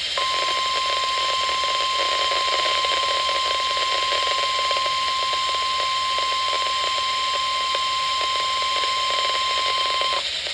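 NOAA Weather Radio's 1050 Hz warning alarm tone, one steady high tone held for about ten seconds over a constant hiss, announcing a severe thunderstorm warning. It cuts off shortly before the end.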